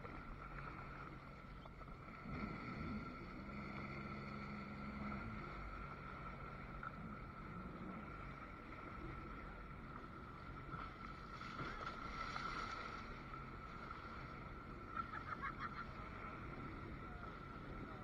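Sea-Doo jet skis running at low speed on the water, a low steady engine hum that swells briefly about two and a half and twelve seconds in.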